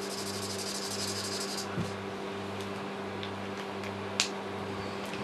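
Marker nib scribbling on paper for about the first second and a half, over the steady hum of an electric fan with a slow regular pulse; a couple of faint clicks follow.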